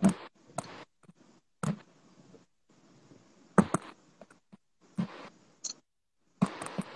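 Scattered short knocks and clicks, about seven at irregular times, some followed by brief rustling, with near-silent gaps between them.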